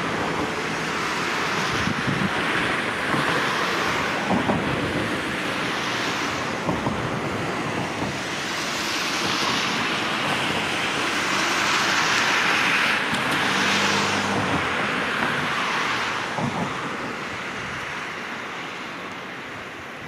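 River water rushing steadily, swelling and easing every second or two, and growing quieter near the end.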